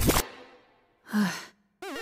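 A rising whoosh that dies away within about half a second, then a short sighing breath and, near the end, a brief warbling voice sound.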